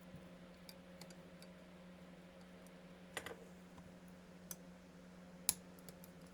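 Scattered light clicks and taps of small hard objects being handled, with a small cluster about three seconds in and a sharper click about five and a half seconds in, over a steady low hum.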